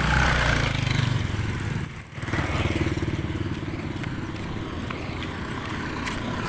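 Motorcycle engine running steadily while riding, with wind rushing over the microphone; the sound briefly drops about two seconds in, then the engine note settles back.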